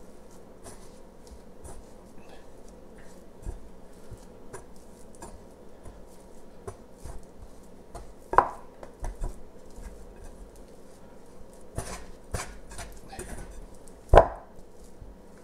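Hands mixing and pressing sticky rye dough in a mixing bowl: soft squishing of dough, rustling flour and small clicks. There are several knocks against the bowl, with two sharp louder ones about halfway through and near the end.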